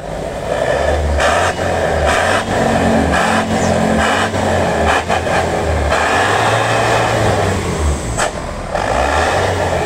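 A medium bus's diesel engine running loud through a stainless-steel SUOS aftermarket exhaust, with a deep pulsing rumble and a harsh rushing hiss likened to a jet taking off. It is revved up several times in short blips.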